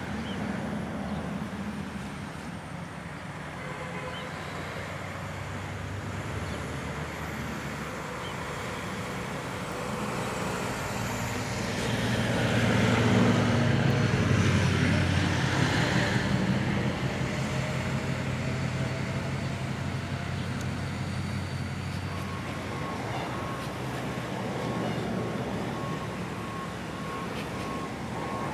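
Road traffic: a motor vehicle's low engine rumble swells to its loudest about halfway through and fades again. A repeated high beep starts about three-quarters of the way in.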